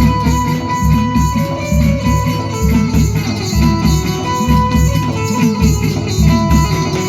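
Loud music with a plucked-string melody over a heavy, pulsing bass beat.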